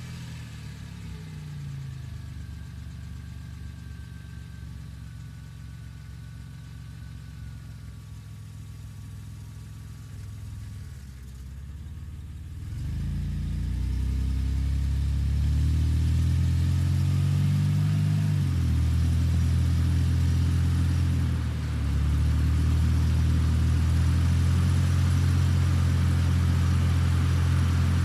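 A 1996 Ford Falcon's engine idles steadily just after starting, with a faint thin whine above it. About twelve seconds in it grows much louder and its pitch climbs. It drops back briefly twice, then settles into a louder steady run.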